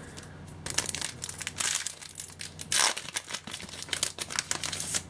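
Foil wrapper of a Yu-Gi-Oh! booster pack crinkling in the hands as it is torn open: a run of irregular crackles and rustles, loudest about three seconds in.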